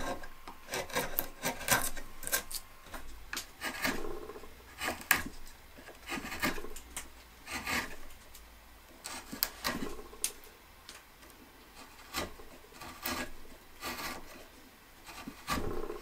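Hand carving chisel paring thin shavings from the end grain of a wooden scroll, in short, irregular scraping cuts with brief pauses between strokes.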